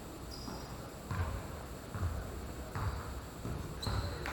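Basketball bouncing on a gym floor, about four thuds roughly a second apart, with two short high squeaks.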